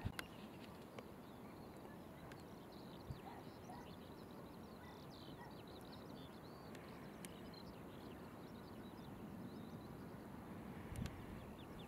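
Faint outdoor ambience: many short, high-pitched chirps over a low steady rumble, with a few light clicks.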